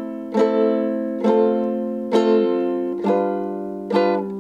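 Ukulele chords strummed slowly, one stroke a little under every second, about five strokes, with a change of chord around the middle.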